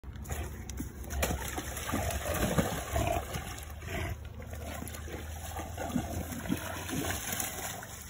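Water splashing and sloshing as a Boerboel wades through a shallow river, with irregular soft splashes.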